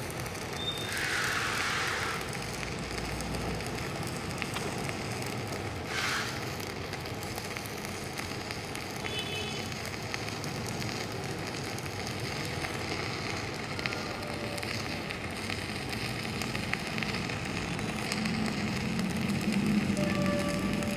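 Stick-welding arc from a BTEC MMA-200 Mini inverter welder, burning a 3.2 mm electrode at maximum current, running steadily with a brief louder burst about a second in. The current is high enough to burn through the steel.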